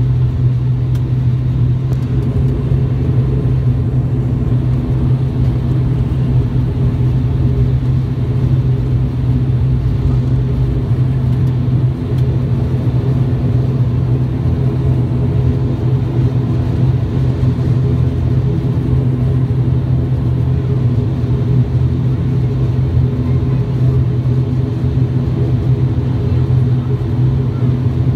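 Steady drone of an ATR 42-600's twin Pratt & Whitney PW127M turboprop engines and six-bladed propellers, heard from inside the cabin: a strong low hum with higher tones above it.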